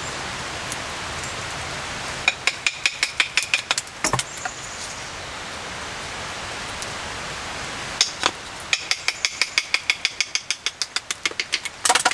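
Knife blade worked quickly along a thin wooden stick, in two runs of fast clicking strokes with single sharp knocks between them, over a steady hiss of rain.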